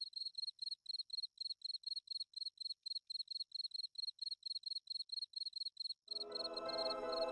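Cricket chirping steadily, a high pulsing trill of about five chirps a second. About six seconds in, soft sustained background music fades in beneath it.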